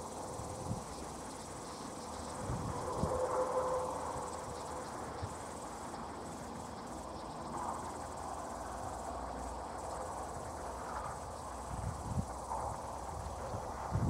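Insects chirping steadily in the grass by the tracks: a faint, continuous high-pitched shrill.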